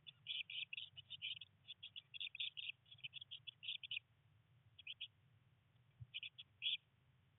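Blue tits chirping in fast runs of short, high calls. The runs stop about four seconds in, followed by two brief bursts of chirps later.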